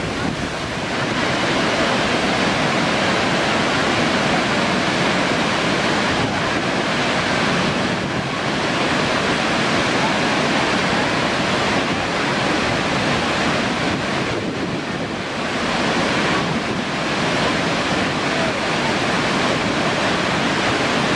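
McArthur-Burney Falls, a tall waterfall of many streams pouring off a cliff into a plunge pool, making a loud, steady rush of falling water.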